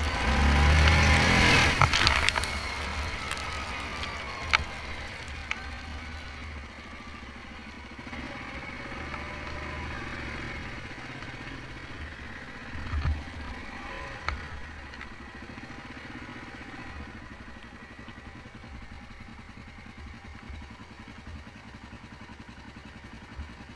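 Yamaha Grizzly 700 ATV's single-cylinder engine running on a wet gravel trail, loudest in the first couple of seconds and then easing off to a lower steady level. A few sharp clicks come through, about four seconds in.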